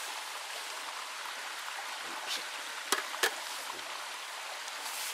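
Two sharp clicks about a third of a second apart, roughly three seconds in: wooden chopsticks being set down against a metal camp cup. Underneath, a steady rushing hiss.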